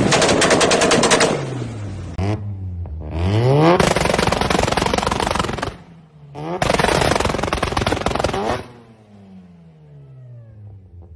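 Tuned car engine revved hard several times, with rapid crackling pops and bangs from the exhaust in three loud spells. The revs then fall away to a quieter idle near the end.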